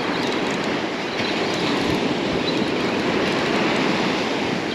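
Steady rushing noise of surf breaking and washing up the beach.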